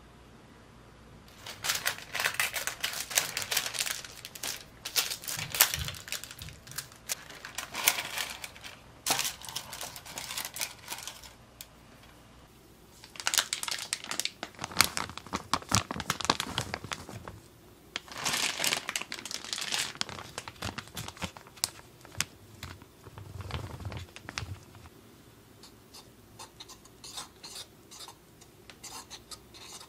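Paper flour bags crinkling and rustling in repeated bursts as cake flour and bread flour are handled and measured out. Near the end a wire whisk stirs the dry flour in a wooden bowl with light, scratchy ticking.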